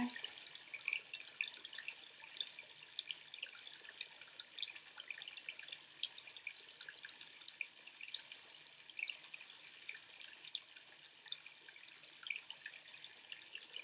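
Faint trickling water: a steady patter of many small, irregular drips.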